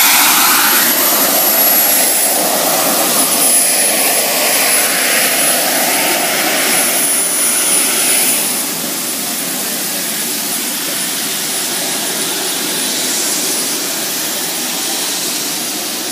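Small gas turbine engine of a ride-on garden-railway locomotive running: a loud rushing roar with a steady high-pitched whine that drops slightly in pitch about two seconds in. The roar eases a little about eight seconds in.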